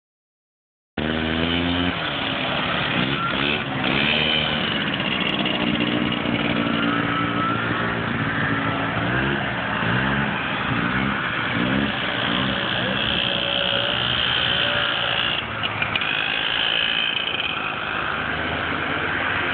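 Vintage two-stroke snowmobile engines running as several sleds ride past, the pitch rising and falling repeatedly as they rev and pass by.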